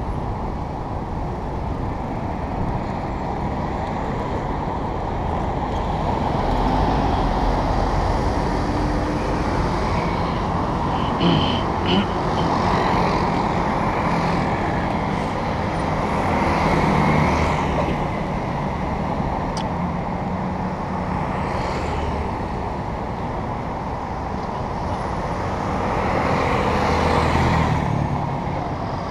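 City road traffic at an intersection: cars and motor scooters running and passing in a steady mixed hum. Two short sharp sounds come about eleven and twelve seconds in.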